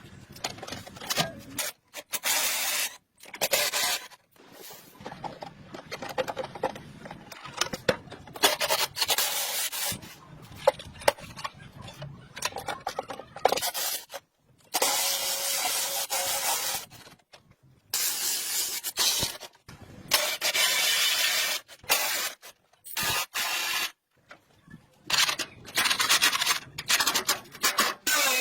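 Hand scraping and rubbing, typical of sanding or scraping parts clean during a restoration, in short bursts broken by sudden gaps.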